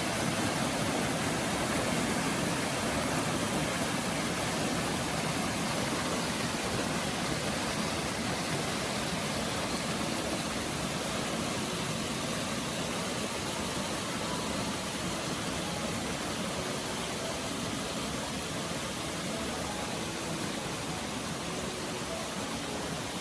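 Steady rush of flowing spring water from the Geomryongso spring, an even hiss with no pauses that eases off slightly toward the end.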